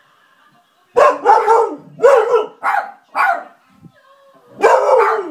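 Husky-type dog barking: a run of about five loud barks starting about a second in, then a longer, drawn-out bark near the end.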